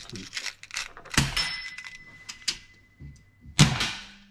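Two loud air rifle shots about two and a half seconds apart, the first followed by a steady high metallic ring that lasts until the second shot. Light clicks of handling come before them.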